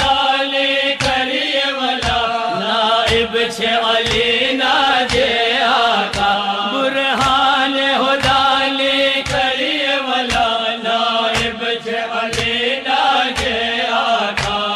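Chanted devotional elegy for Imam Ali, one melodic voice line carrying on without a break, over a steady percussive beat about twice a second.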